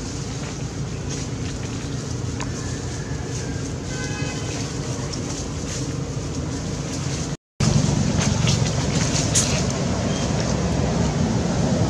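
Steady low rumbling outdoor background noise. It breaks off briefly about seven and a half seconds in and comes back louder, with a faint, short, pitched call around four seconds in.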